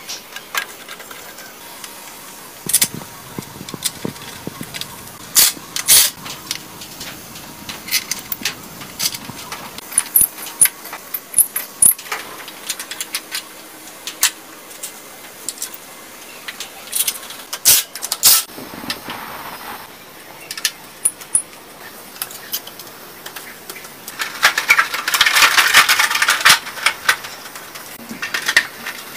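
Scattered metallic clinks and taps of hand tools and bolts on a motorcycle frame during reassembly, with a louder stretch of rustling and scraping near the end.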